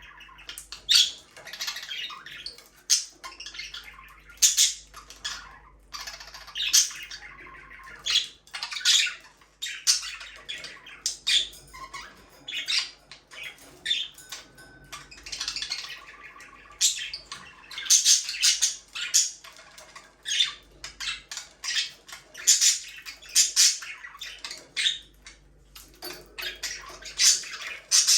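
Budgerigars chirping and squawking, a busy run of short, sharp calls several times a second with brief pauses.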